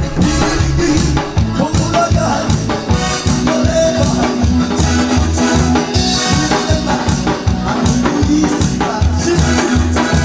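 Loud upbeat music with a steady, fast beat and strong bass.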